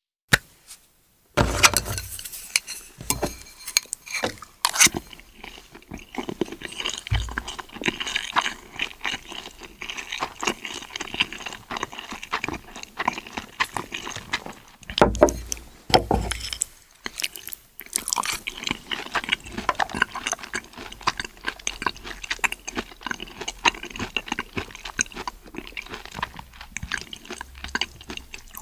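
Metal spoon clinking and scraping against a ceramic soup bowl and a plastic rice tub as vegetable soup is spooned over rice, with many irregular sharp clinks.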